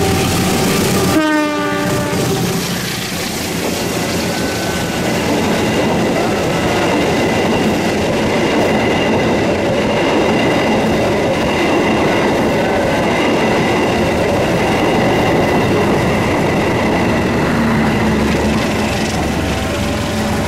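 Diesel-hauled passenger train passing close by: a steady rush of wheels on rail with a thin, high whine held above it. About a second in, a short tone drops steeply in pitch.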